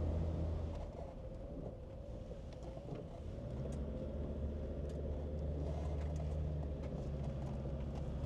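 Land Rover Discovery Td5 five-cylinder turbodiesel with automatic gearbox, heard from inside the cabin as it drives and gathers speed, with road and tyre noise. The engine note eases off about a second in and picks up again a couple of seconds later, then holds steady.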